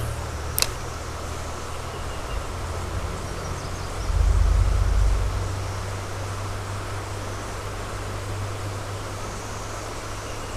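Steady rush of flowing creek water with low wind rumble on the microphone, swelling loudest about four to five seconds in. A single sharp click just under a second in.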